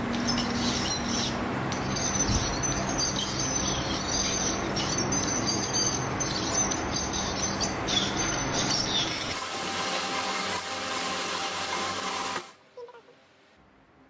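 Dental instruments working a post out of a tooth with a fine ultrasonic tip and burs: a high, wavering whine over a steady hiss. The sound turns brighter about nine seconds in and cuts off abruptly about twelve seconds in, leaving near silence.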